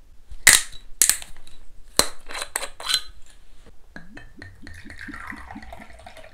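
Glass clinks and clicks as a green glass soju bottle is handled. About four seconds in, soju pours from the bottle's narrow neck into a small shot glass, glugging in quick pulses.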